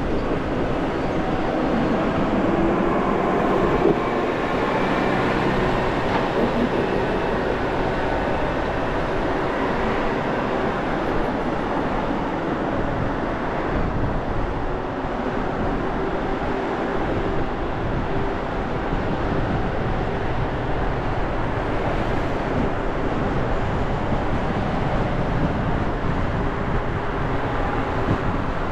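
Steady road noise from a car driving through city streets: tyre rumble and a low engine hum that continue evenly, with no sharp sounds.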